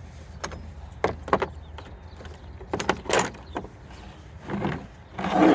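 Hand tools being handled in a plastic mechanic's tool-kit case: a scattered series of short clicks and knocks.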